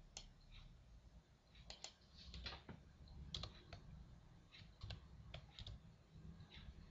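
Faint computer keyboard typing: single keystrokes clicking at an uneven pace, a few closely spaced.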